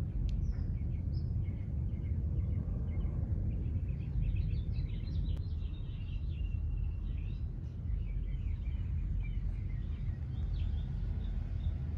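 Outdoor ambience: small birds chirping repeatedly over a steady low rumble.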